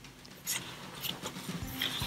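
Pages of a large art book being turned by hand: paper rustling and flapping, starting about half a second in.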